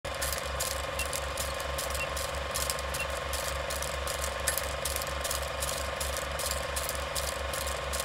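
Film projector sound effect: an even, rapid mechanical clatter with crackle and a steady hum, laid under a vintage countdown leader.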